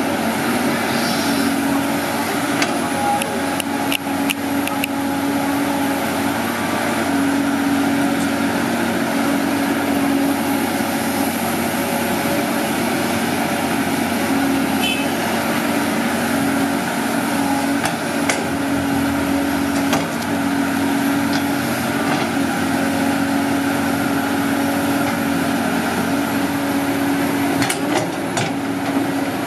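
Caterpillar 320D hydraulic excavator's six-cylinder diesel engine running steadily, with a few short knocks now and then.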